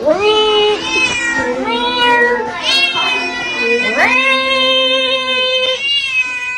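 A cat yowling in a bathtub: a string of long, drawn-out meows, one after another. The longest rises about four seconds in and is held for nearly two seconds.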